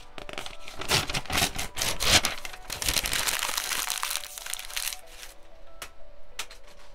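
Paper being crumpled: a dense crackle lasting about five seconds, then a few single clicks, over soft background music.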